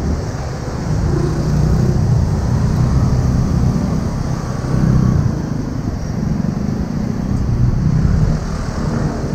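Street traffic: cars and motor scooters passing close by with engine and tyre rumble, swelling louder several times as vehicles go past.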